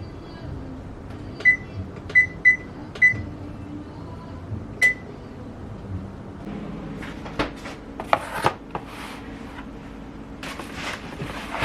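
Five short electronic beeps at one pitch, like buttons pressed on an appliance's keypad, followed near the end by a few knocks and rustling.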